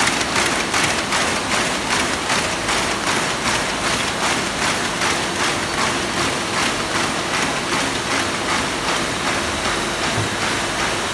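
Inner-page paper folding machine running, with a steady mechanical rhythm of about three strokes a second over a constant hiss.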